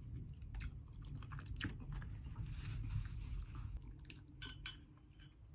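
Close-miked mouth sounds of someone eating sweet Filipino-style spaghetti: wet chewing and small irregular smacks. Near the end comes a short cluster of sharper sounds as she sips apple juice through a straw.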